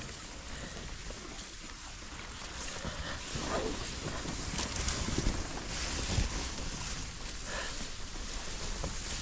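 Water splashing and gurgling around a small boat being paddled down a creek, with a few louder splashes scattered through.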